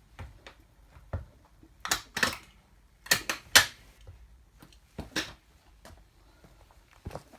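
Sharp cracks and clatters of a toy car's plastic and metal parts breaking and scraping under a platform high heel, in small clusters, the loudest group about three seconds in.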